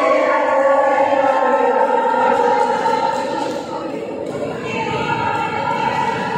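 Voices singing together in long, held notes, echoing through a large sports hall.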